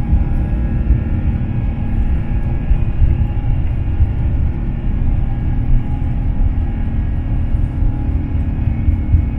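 Airbus A350-900 jet engines (Rolls-Royce Trent XWB) at takeoff thrust, heard from inside the cabin during the takeoff roll. A loud, steady rumble with steady whining fan tones over it.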